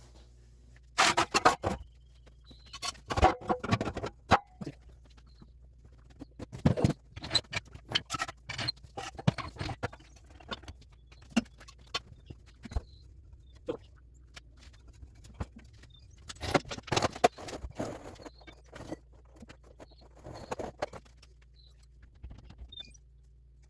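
Metal exhaust pipe sections clanking and scraping in irregular bursts of knocks as they are lifted and offered up into place under the truck.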